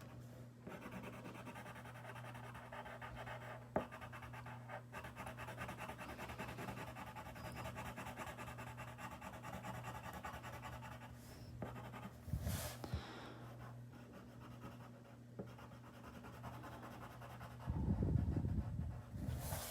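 Rapid back-and-forth scratching of a drawing tool colouring on paper, over a steady low electrical hum. The scribbling thins out after about eleven seconds, and there is a louder low rustle near the end.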